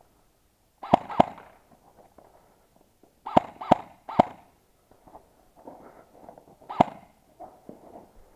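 Specna Arms SA-B03 electric airsoft rifle, set up to shoot at 450 fps, firing single shots: two quick shots about a second in, three more around the middle, and one more near the end.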